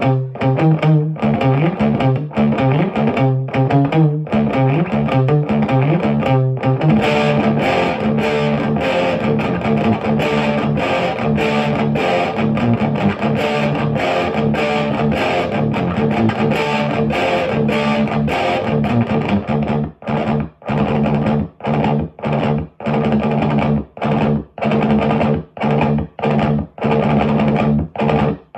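1986 Jackson Soloist Custom electric guitar, with a Seymour Duncan pickup, played through a Marshall JCM900 4502 combo with Celestion G12T-75 speakers. It plays quick picked runs for the first several seconds, then long ringing chords. From about two-thirds of the way in, it switches to short chords, each cut off to silence.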